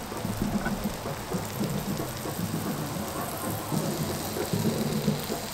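Sausages and hedgehog mushrooms frying in butter in a small pan on a Trangia Mini stove, a steady sizzle and crackle, with a low rumble underneath.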